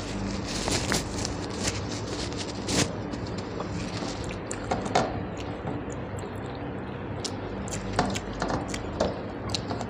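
Close-miked eating of rice with dal and fish curry: wet squelching and smacking of chewing, with scattered clicks and a few sharper smacks.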